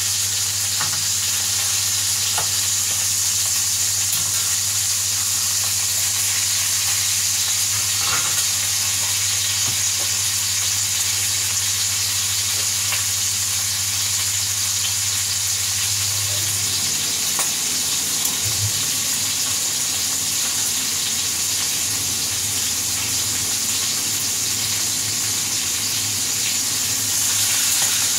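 Burger patties sizzling steadily as they fry in a frying pan, with a few light clicks of a kitchen knife against the pan as they are turned.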